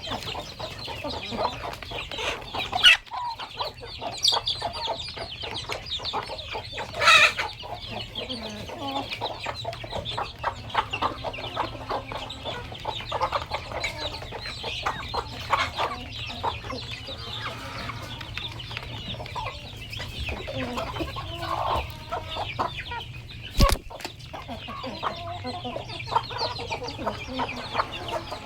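A flock of village chickens clucking at feeding time, with many short clicks through it. There is a louder call about seven seconds in and a sharp click near the end.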